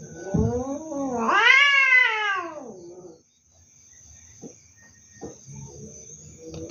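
Domestic cat caterwauling in a standoff with another cat in a tree: one long drawn-out yowl of about three seconds that rises and then falls in pitch, followed near the end by a quieter, lower yowl.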